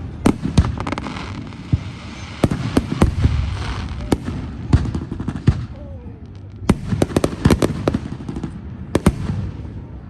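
Aerial fireworks bursting: many sharp bangs in quick clusters over a low rumble. There is a brief lull about six seconds in, then another rapid cluster.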